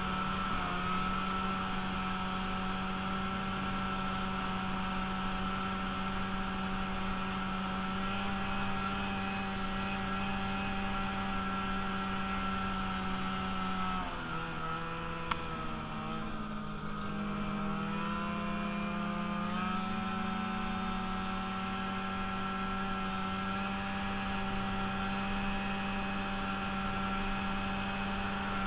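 Engine of a freshly rebuilt machine running at a steady speed on its first ride. About 14 seconds in the pitch drops as it eases off, and it climbs back to the same steady speed about five seconds later.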